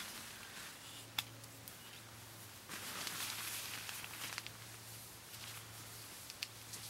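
Faint rustling and handling of a tarp and its pole and guylines during pitching. A few sharp light clicks come through, the clearest about a second in, with a slightly louder stretch of rustling in the middle.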